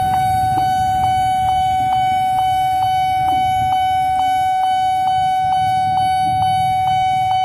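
Railway level-crossing warning bell ringing steadily at about two strokes a second, over the low rumble of idling motorcycle engines.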